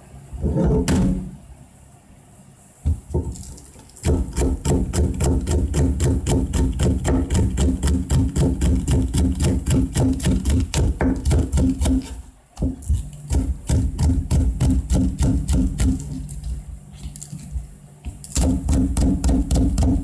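Kitchen knife chopping green onions on a cutting board: quick, even knocks of the blade on the board, about five a second, with short breaks a little past the middle and again near the end.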